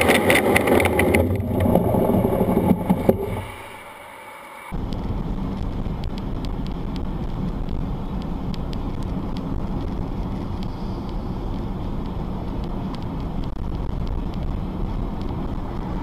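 Loud rushing wind and motor noise that drops away about three and a half seconds in. After a brief lull comes the steady low rumble of road and engine noise heard from inside a car through a dashcam, with faint light clicks.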